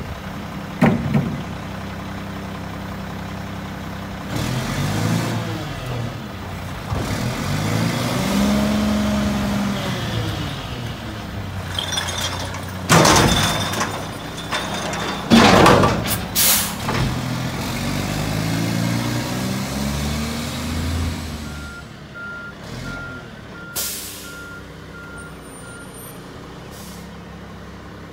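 Front-loader garbage truck's engine revving up and down to drive the hydraulic arms that lift the carry can over the cab and dump it into the hopper. There are loud bangs around the middle as the can is tipped at the top. Near the end come a short air-brake hiss and a run of reversing beeps.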